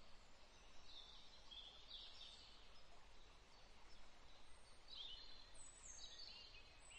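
Near silence, with faint high bird chirps in the background: a scattering of short calls that fall in pitch.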